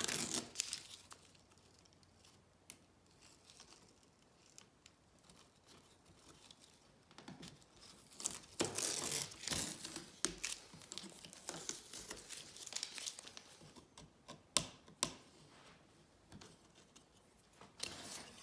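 Paper stencil being peeled off a scroll-sawn wooden cutout: soft tearing and crinkling of paper, loudest in a spell about halfway through, with a few sharp clicks and quiet gaps between.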